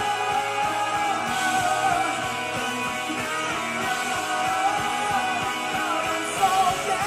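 Live rock band playing: an electric guitar carries the melody in held, wavering notes over drums and bass.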